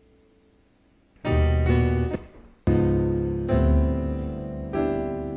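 Piano chords played on a keyboard. After a moment of quiet, a short pair of chords comes in; after a brief gap, a run of sustained, extended jazz-style chords follows, changing every second or so.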